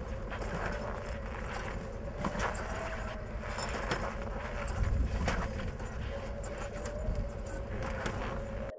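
Kick-starting of cold Harley-Davidson motorcycles (a 1948 Panhead and a Shovelhead): scattered clanks and knocks of the kick-start levers and bike hardware, over a low wind rumble and a steady hum.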